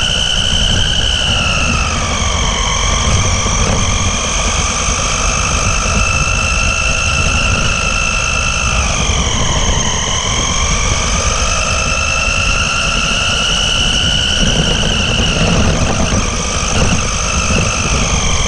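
Radio-controlled buggy heard from its own onboard camera: the motor and drivetrain whine, dipping in pitch about two seconds in and again near the middle before climbing back as it speeds up, over a steady rumble of the tyres on asphalt.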